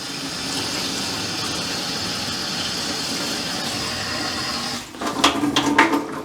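Newly installed kitchen faucet running water into the sink in a steady rush; about five seconds in the flow breaks into irregular splashing.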